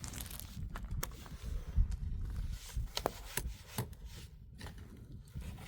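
Scattered sharp knocks and scrapes, a handful over a few seconds, over an uneven low rumble of wind on the microphone.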